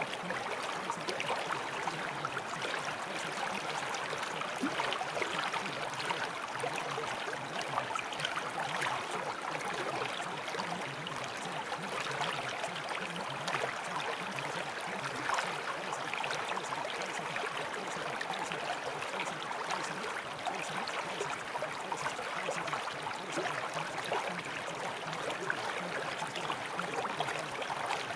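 Steady, even rushing-water noise like a flowing stream, serving as the masking background bed that hides a subliminal's sped-up affirmations.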